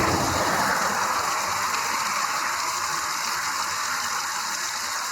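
Steady rush of a mountain waterfall running high after heavy rain, slightly louder at the start and easing a little.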